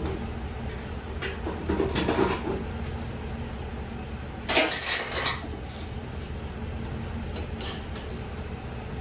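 Steel snowplow mount hardware being handled: a few metal clanks and rattles about two seconds in, a louder metallic clatter around the middle, and light chain clinks near the end as the plow's lift chain is hooked up. A steady low hum runs underneath.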